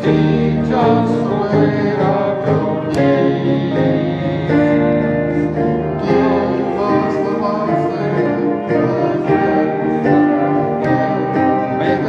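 Piano and guitar playing a hymn tune, a steady run of held chords and melody notes.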